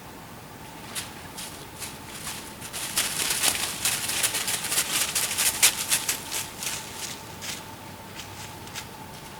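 Two bucks' antlers clashing in a fight: scattered clicks build into a fast, dense clatter about three seconds in, then thin out to a few clicks near the end.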